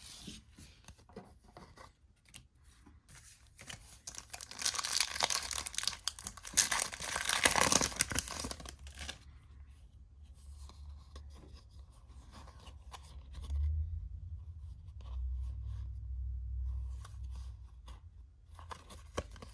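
Wrapper of a trading-card pack being torn open and crinkled, loudest for about five seconds near the start, followed by softer rustling and a low rumble.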